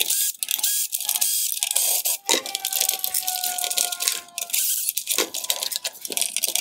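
Cordless drill/driver backing T20 screws out of a plastic headlight housing, its motor whining in a steady, slightly falling tone for about two seconds midway. Clicks and rattles of small parts being handled run throughout.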